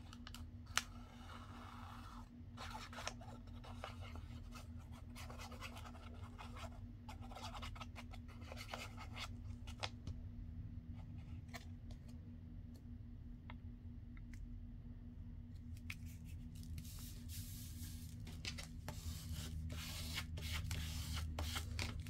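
Paper and card being handled, rubbed and pressed down on a craft mat: irregular rustling and scraping with light clicks and taps, a sharp click about a second in, over a low steady hum.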